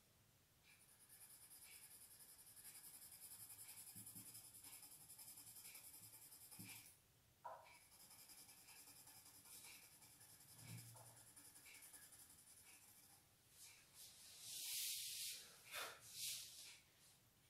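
Faint scratching of a pencil drawn back and forth over paper coloured with crayon, in quick short strokes, with a few louder scratches near the end.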